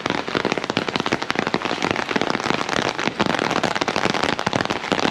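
Rain falling hard: a loud, dense, continuous patter of close drops striking.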